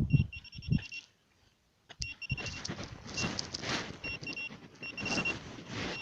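Metal detector giving short, repeated high beeps over a target that may be iron, against rustling and scraping of soil being dug.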